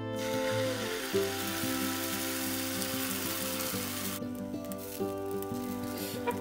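Beaten egg sizzling as it is poured into a hot, oiled rectangular tamagoyaki pan, a dense hiss that cuts off abruptly about four seconds in.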